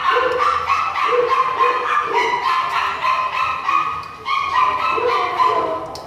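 A dog barking and yipping over and over, several short pitched calls a second, with a brief pause about four seconds in.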